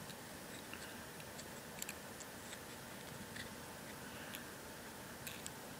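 Faint, scattered small clicks and taps from a Zippo lighter insert being handled as a shortened flint is fitted into its flint tube.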